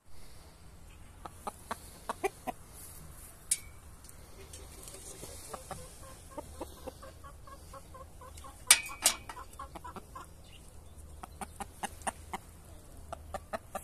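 Chickens clucking: scattered short sharp clucks, a run of quick soft clucks in the middle, and a louder pair of sharp sounds about nine seconds in.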